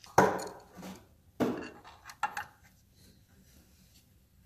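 Metal clanks and clinks of a wrench and a threaded bearing installer tool as a new cam bearing is pressed into a Harley Evolution engine's cam bore. There are two sharp clanks in the first second and a half, then a few lighter clinks.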